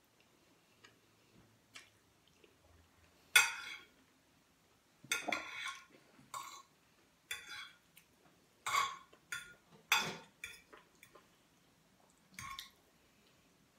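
A metal fork clinking and scraping on a plate as spaghetti is twirled, in irregular strokes with the sharpest clink about three seconds in.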